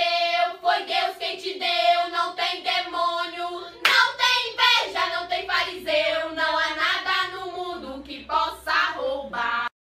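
A high singing voice from the clip's soundtrack, with a sharp click about four seconds in after which a faint low hum joins it; the sound cuts off suddenly near the end.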